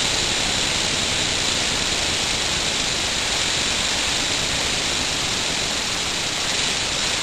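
Homemade brass elbow engine running fast on compressed air: a steady, loud rushing hiss of air through its cylinders and ports.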